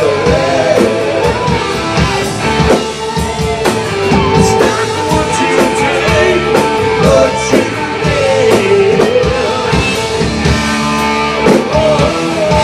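Live rock band playing: electric guitars, bass guitar and drum kit, with a lead line bending up and down in pitch over steady drum hits.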